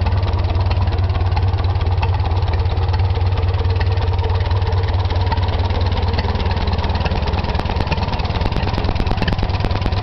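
Caterpillar Ten crawler tractor's four-cylinder gasoline engine idling steadily, with an even, rapid firing beat.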